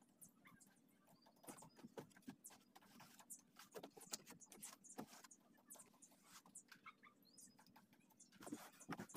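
Faint, irregular scraping, rubbing and tapping on a fiberglass boat mold as it is cleaned by hand, a little louder near the end.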